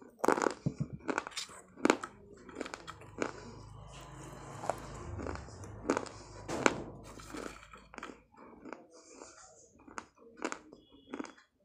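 Close-up chewing of pieces of fired clay: dry, gritty crunches and clicks. They come thickly in the first two seconds, with another sharp crunch about six and a half seconds in.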